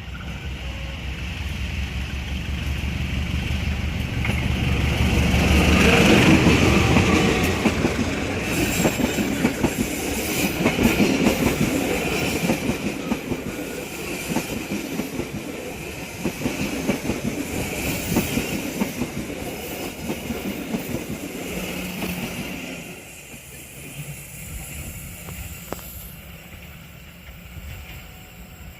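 Diesel-hauled local passenger train passing close while climbing a grade. The locomotive's rumble builds to its loudest about six seconds in. The carriages then roll by with a run of wheel clicks over the rail joints, and the sound drops away about 23 seconds in.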